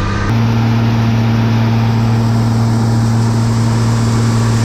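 Combine harvester's engine running steadily under way, a constant deep hum; about a third of a second in it steps slightly higher in pitch and louder.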